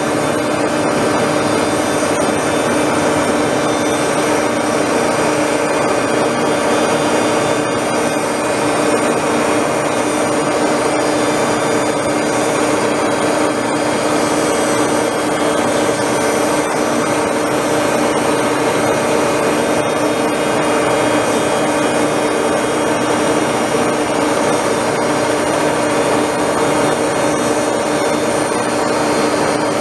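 Tool post grinder's electric motor running, its wheel grinding the hardened jaws of a Bison 12½-inch three-jaw chuck turning in the lathe, with a steady, unbroken whine and grinding hiss. The jaws are being ground true to remove the wear that had them splayed and running out.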